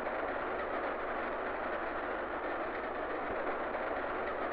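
Steady running noise of a moving passenger train, an even rush and rumble with no breaks.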